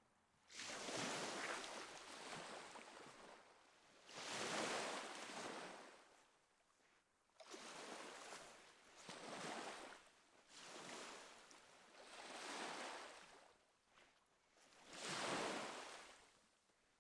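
Waves breaking and washing up on a shore, a swell of surf every two to three seconds, each rising and then fading away.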